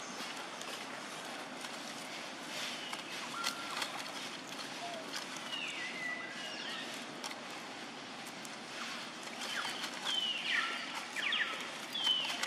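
Outdoor ambience of leaves and stems rustling and crackling as a macaque strips and eats leaves from a plant. A few short, high, falling chirps come every few seconds.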